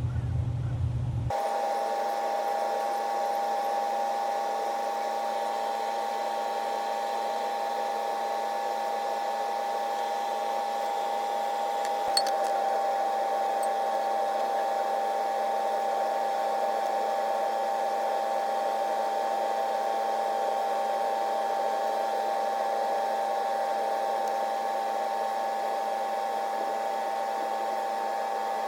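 A steady, high-pitched mechanical whine that holds one pitch throughout, with a single click about twelve seconds in.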